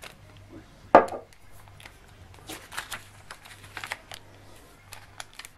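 Paper sachet of boric acid powder rustling and crinkling in the hands as it is opened and the powder shaken out onto a sheet of paper, with one louder rustle about a second in and scattered crackles after.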